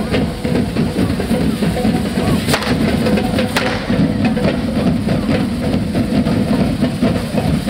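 Devils' band drums beating a dense, continuous rhythm, with two sharp bangs about two and a half and three and a half seconds in.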